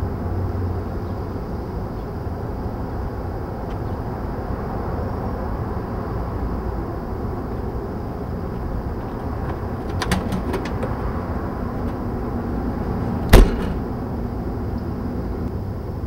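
Steady outdoor background rumble, with a short cluster of clicks about ten seconds in and a single sharp knock a little past thirteen seconds, the loudest sound.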